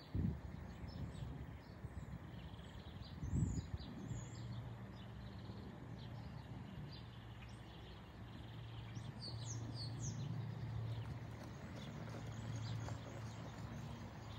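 Small birds chirping and singing in short, quick calls, over a low steady hum and faint outdoor noise, with one dull thump about three and a half seconds in.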